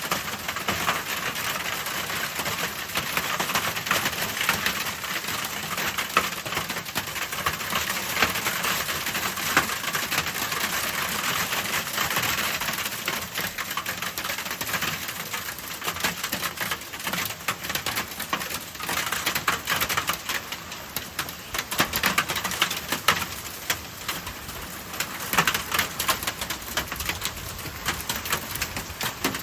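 Hailstones and heavy rain pelting hard surfaces: a dense, rapid clatter of small impacts over a steady hiss of rain.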